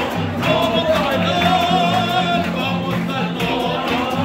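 Live Latin music: strummed guitars keeping a steady rhythm, with a voice singing and holding one long, wavering note through the middle.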